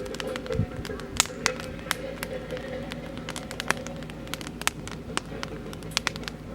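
Oak firewood burning in a campfire, crackling with irregular sharp pops.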